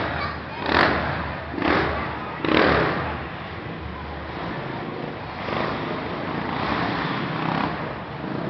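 Quad (ATV) engines revving on an indoor dirt track, with several sharp surges of throttle in the first three seconds and a steadier run after.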